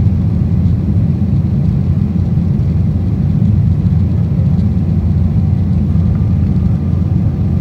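Steady cabin noise inside an Embraer 190 airliner in flight after takeoff: an even, low rumble of its GE CF34 turbofan engines and the airflow over the fuselage.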